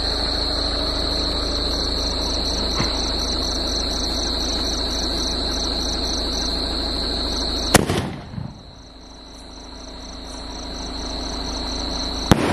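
Crickets trilling steadily over a constant hiss. About eight seconds in comes a single sharp crack, and near the end a second sharp pop as an old sky shot bursts into a few sparks overhead, firing poorly.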